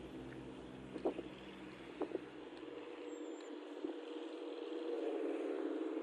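A motor running steadily with a low, pulsing hum that drops away about three seconds in, leaving a steadier, higher drone. A few short faint clicks come near the start and middle.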